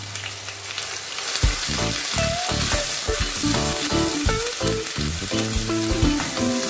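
Onion paste sizzling as it fries in hot oil in a nonstick saucepan, stirred with a silicone spatula. Background music with a melody comes in over it about a second and a half in.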